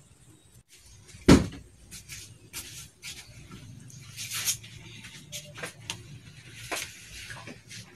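Kitchen handling sounds: a loud knock about a second in, then scattered clicks and short splashy bursts as coconut milk is poured into a pan of fish pieces.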